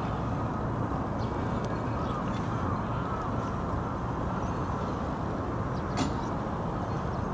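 Steady low outdoor rumble, even and unchanging, with a few faint clicks and one sharper tick about six seconds in.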